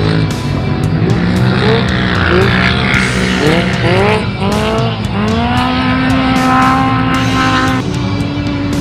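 Off-road race car engine heard from inside the car, revving up in a series of short rising surges, then running at a steady high speed from about halfway through. Frequent sharp knocks and rattles sound over it.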